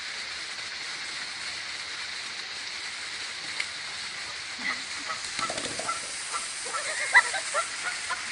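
Geese honking, scattered short calls starting about halfway through and coming thicker near the end, over a steady hiss.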